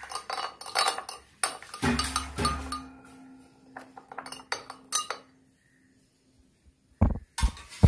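Metal spoon stirring honey into tea in a glass tumbler, clinking repeatedly against the glass. After a short pause, a few louder knocks come near the end.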